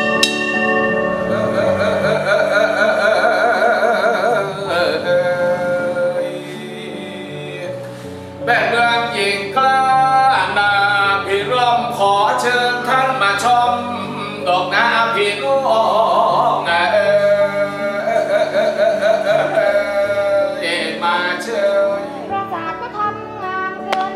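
A song with singing over instrumental backing. It opens with a single strike of a brass hanging bell, ringing out and fading under the music.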